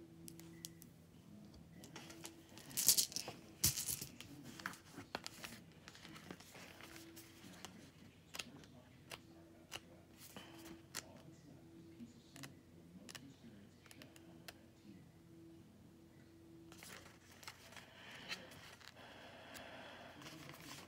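Pages of a paperback book being handled and leafed through: soft paper rustles and crinkles with small clicks, loudest about three seconds in.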